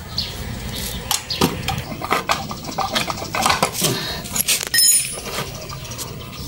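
Metal tools clicking and knocking against the housing and parts of a small gasoline engine as it is taken apart. A sharp metallic clank with a brief ring comes just before five seconds in.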